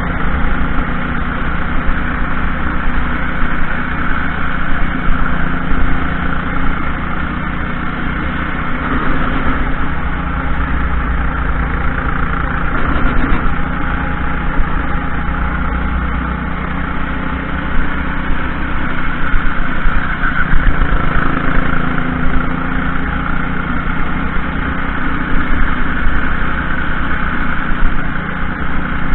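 Racing kart engine running steadily through a lap, with road noise, heard from a camera mounted on the kart.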